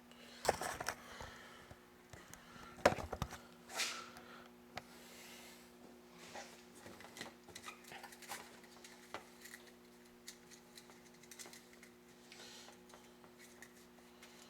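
Clatter and rustling of wires and tools being handled on a work surface while setting up to solder, loudest in the first few seconds, then light scattered ticks over a steady low electrical hum.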